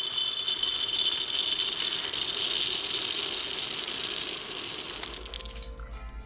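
A fast, dense rattling and jingling, like many small hard pieces shaken together, that stops abruptly about five and a half seconds in.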